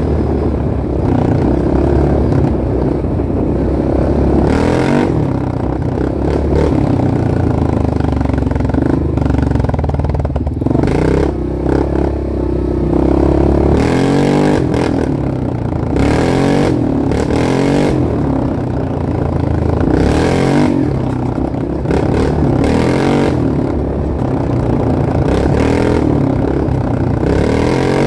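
Off-road vehicle engine running under changing throttle, revving up and easing off over and over, with bouts of clattering.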